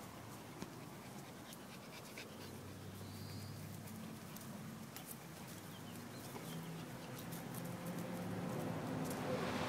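Rottweiler puppies play-wrestling, with low dog growls and panting, and a thin whine near the end.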